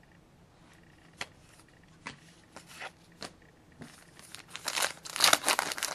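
Trading-card pack wrapper crinkling and tearing as it is ripped open by hand. It builds about four seconds in, after a few light clicks.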